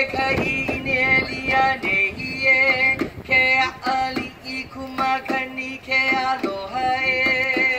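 Hawaiian hula music: singing on long held notes over a regular beat.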